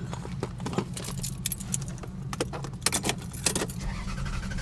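Car keys jangling, with irregular sharp clicks, as the ignition key is worked in a car that will not start, over a steady low hum.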